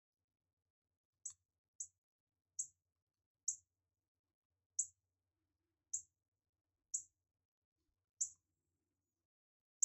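Shot timer giving short high-pitched beeps, about nine of them at uneven intervals of roughly a second, each with a faint tap, as its buttons are pressed.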